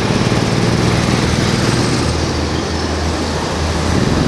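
Several go-kart engines running together on the grid, a steady, unbroken drone.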